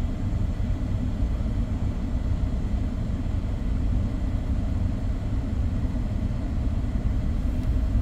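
Lexus RX400h's V6 petrol engine running steadily at about 1,200 rpm, a continuous low rumble.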